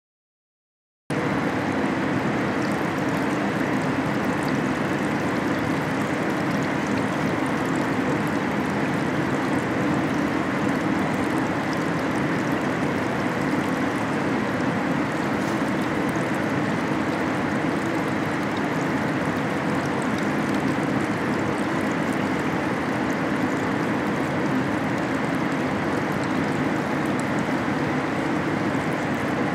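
Steady machine ambience in a car-body paint booth: an even rushing noise over a low hum, cutting in suddenly about a second in and holding unchanged.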